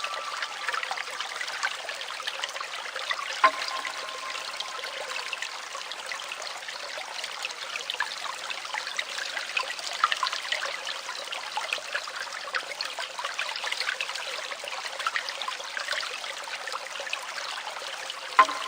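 Steady trickling, babbling water of a brook-like stream. A sharp click with a brief ringing tone sounds about three and a half seconds in, and again near the end.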